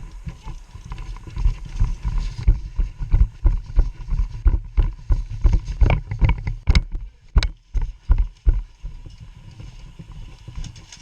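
Footsteps and jostling kit of a player on the move, picked up by a body-worn camera: heavy thumps about three a second, with a couple of sharp clicks about halfway through.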